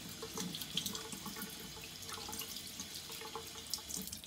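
Kitchen faucet running a stream of water onto soaked oats in a stainless steel mesh strainer while fingers stir them, the water rushing through the grains and mesh into the sink with scattered small splashes.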